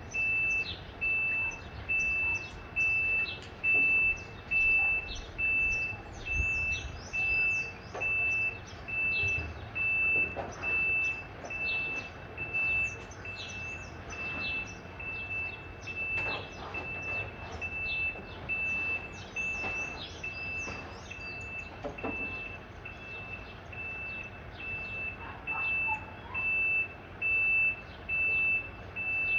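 Semi-trailer truck's reverse alarm beeping, a single high tone pulsing on and off about once a second, which signals the rig is backing up. The beeps grow fainter in the middle and louder again near the end.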